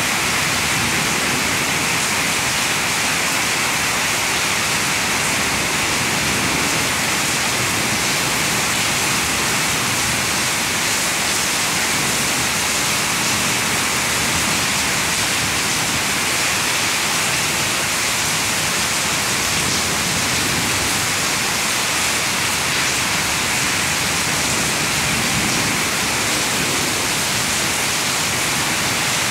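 Heavy rain pouring down and splashing on paved ground, steady and unbroken.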